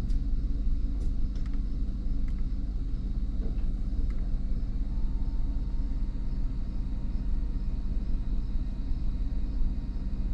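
Chevrolet 4.8-litre V8 idling steadily while its fuel injectors are shut off one at a time from a scan tool, a cylinder cut-out test to find a misfire.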